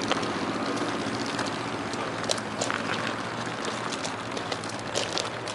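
Steady outdoor background rush with a low hum, broken by a few light crunches and clicks of footsteps on the roof's gravel ballast.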